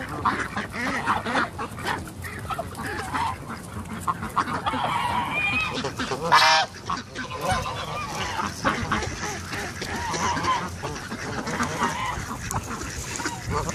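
Domestic geese honking repeatedly while being hand-fed, with one loud honk about six and a half seconds in.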